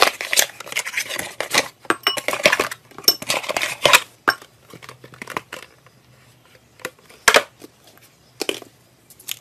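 Cardboard kit box rustling as hands open its flap and pull things out, then plastic glitter glue bottles clinking and knocking against a glass mixing bowl as they are set in and picked out. Busy rustling and clicking for the first four seconds, then a few separate sharp knocks, the loudest about seven seconds in.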